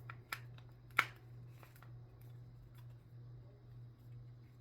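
A Shashibo shape-shifting magnetic puzzle box being folded by hand: a few sharp plastic clicks as its magnetic sections snap together, the loudest about a second in. A steady low hum runs underneath.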